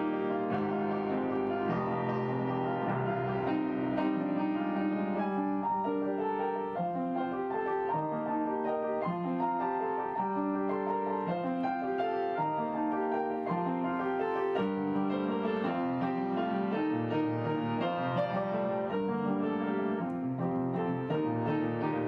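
Background piano music: a solo piano playing a slow melody over held chords.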